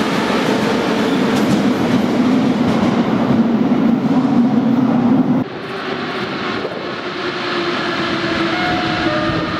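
Moscow metro train accelerating out of the station: loud wheel and running noise with a motor hum rising slightly in pitch. About halfway through it drops abruptly to a quieter tunnel rumble, with thin whining tones from another train approaching near the end.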